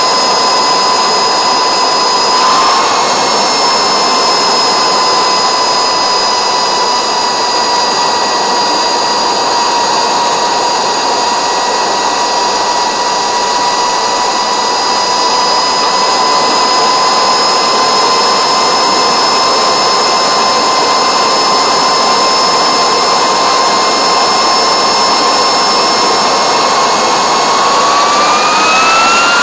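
Homemade miniature turbojet engine running with a steady high whine over a loud rush of exhaust. Near the end the whine rises in pitch as the engine spools up.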